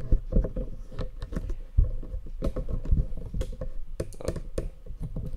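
Handling noise from the camera being repositioned and set down: a rapid, irregular run of clicks and light knocks.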